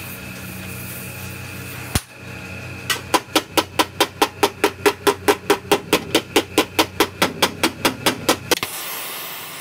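A gas torch hissing steadily, then a fast, even run of hammer blows on the steel body panel of an accident-damaged Suzuki Mehran, about five a second with each blow ringing, as the dented metal is straightened against a flat steel bar held behind it. The blows stop shortly before the end.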